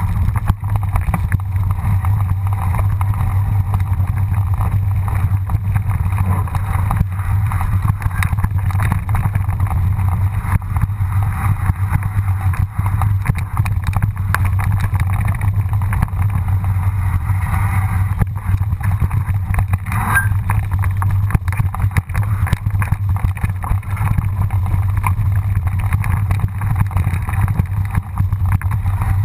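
Mountain bike ride down a rough dirt singletrack heard through the riding camera's microphone: a steady low rumble with wind on the microphone and constant rattling of the tyres and bike over stones and ruts.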